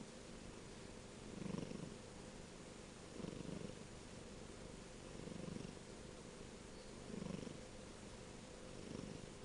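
A kitten purring steadily while its head is petted, a low hum that swells and fades about every two seconds.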